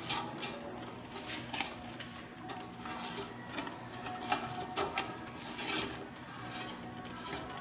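Metal tongs clicking and scraping against an air fryer basket while the chicken pieces are turned: a series of irregular light knocks, the loudest about four seconds in, over a steady low hum.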